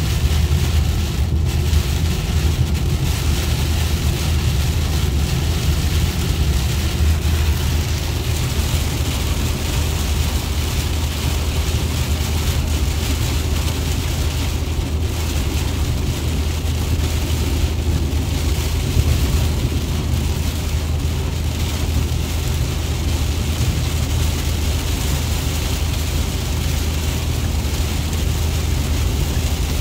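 Heavy rain beating on a car's windshield and roof, heard inside the moving car's cabin over a steady low road and engine rumble.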